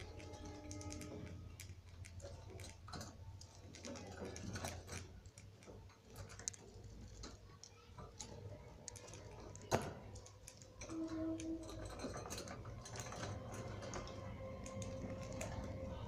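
Budgies picking at fresh seeding grass, their beaks making many small, irregular clicks with light rustling of the stems, and one sharper click about halfway through.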